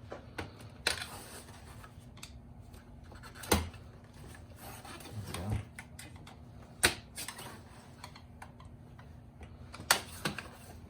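Plastic AC vent being pried out of a car navigation unit's faceplate against its tension clips: light scraping and rubbing of plastic, broken by a handful of sharp clicks, the loudest about a third and two thirds of the way through.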